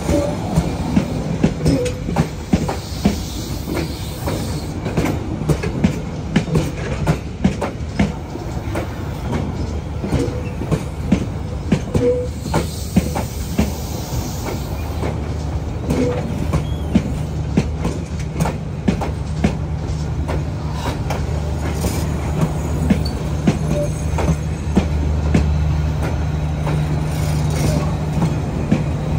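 Vietnam Railways passenger coaches rolling past on the track, their wheels clacking irregularly over rail joints. A steady low hum runs underneath and grows stronger in the second half.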